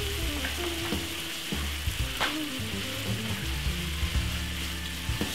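Butter melting and sizzling in a hot non-stick frying pan, a steady hiss, with a single light tick about two seconds in.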